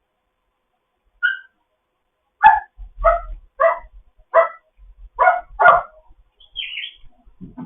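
African grey parrot mimicking a dog's bark: six short barks in a row, after a short high chirp and followed by a higher, rougher squawk.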